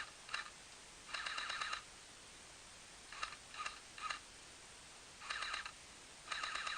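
Airsoft guns firing: two single shots at the start, a rapid burst of about half a second a second in, three single shots around three to four seconds, and two more short rapid bursts near the end.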